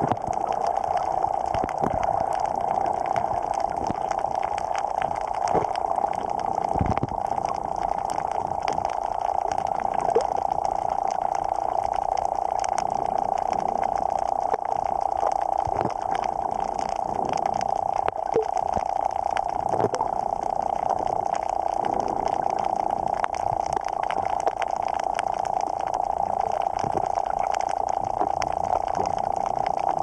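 Underwater sound picked up by a camera: a steady muffled rush of water with many scattered clicks and crackles.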